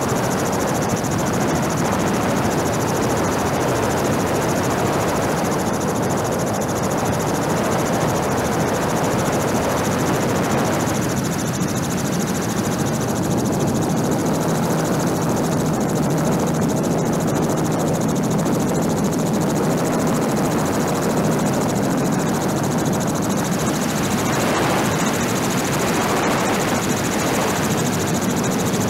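Helicopter heard from aboard, a constant drone of rotor and engine that holds steady throughout, with a low hum showing in the middle stretch.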